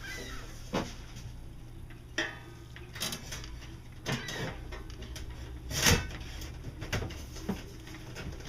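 Irregular knocks and metallic clatters from hand work on the galley counter, about ten in all, several with a brief ring, the loudest about six seconds in.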